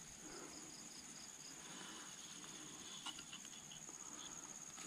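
Insects, cricket-like, keeping up a steady high-pitched trill, with a brief run of quicker chirps in the first second and a half and a faint click about three seconds in.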